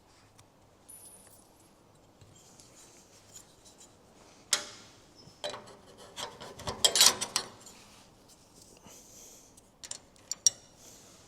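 Small metal fittings handled and fitted by hand on a steel bonnet: a sharp knock about halfway in, then a burst of clinks and scraping, and a few more clicks near the end.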